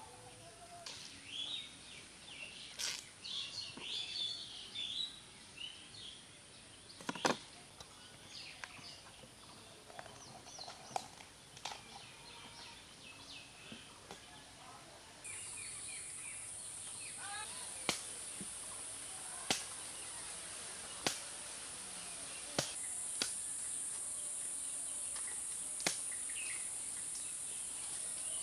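A bamboo shoot being prepared by hand: dry husk sheaths rustling and tearing, then sharp knife cuts into the shoot, one every second or two. Birds chirp, and a steady high insect drone sets in about halfway through and grows louder.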